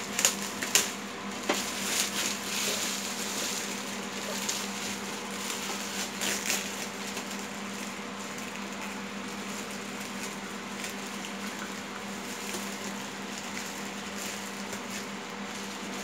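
Thin plastic wrapping bag crinkling and rustling as it is pulled off a new ink-tank printer. A run of sharp crackles in the first several seconds gives way to softer rustling, over a steady background hum.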